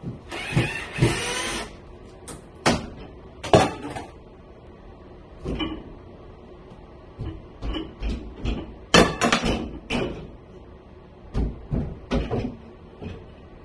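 Irregular sharp knocks, rattles and scrapes of a white wire closet shelf and its rod being worked loose from the wall by hand, with a short scraping stretch near the start and a cluster of the loudest hits about two thirds of the way through.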